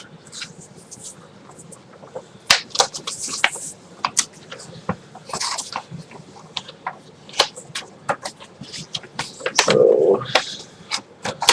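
Large folded paper map being unfolded and handled: paper crinkling and rustling, with irregular sharp crackles throughout.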